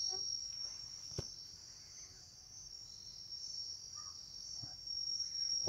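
Crickets chirring in a steady, high-pitched chorus, with one faint click about a second in.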